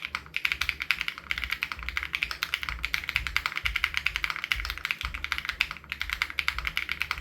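Fast, continuous typing on an SPM AL87B custom mechanical keyboard fitted with BSUN Raw switches: many keystrokes a second in a steady stream, broken only by a couple of brief pauses.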